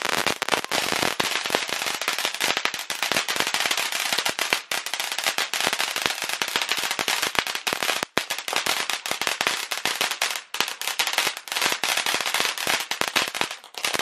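Ground fountain firework spraying sparks: a continuous dense crackling over a steady hiss, with one brief break about eight seconds in.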